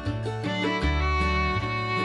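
Background music: a fiddle melody with held notes over guitar and a bass line, in a country or bluegrass style.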